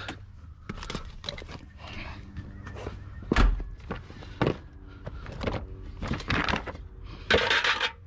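Objects being handled and set down: scattered knocks and clicks, a heavy thump about three and a half seconds in, and a burst of rustling near the end.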